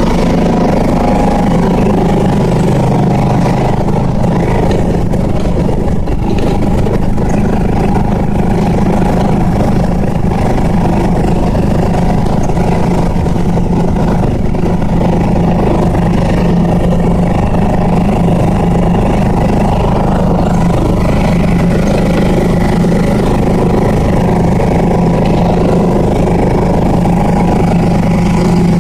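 Viking ride-on lawn mower's petrol engine running at a steady pace while it is driven.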